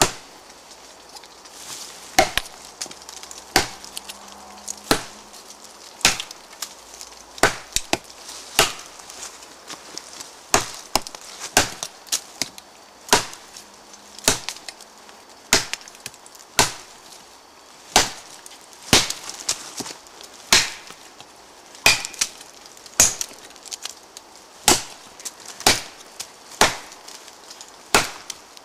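A parang blade chopping into a green tree trunk about 12 cm across: a steady series of sharp wooden chops, roughly one a second, with the wood splintering as the notch deepens.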